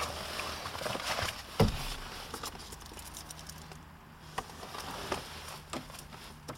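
Scattered small clicks and knocks from hands and objects being handled inside a car cabin, with one loud thump about one and a half seconds in. A faint, steady, low hum begins about halfway through.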